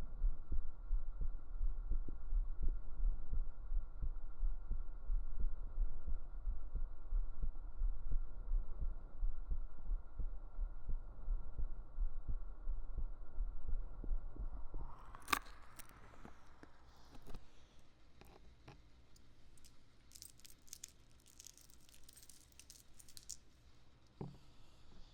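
A person's heartbeat picked up by a microphone held close against the chest: steady low thumps under a faint hum. About fifteen seconds in the heartbeat stops, and quieter rustling and clicking handling noises follow.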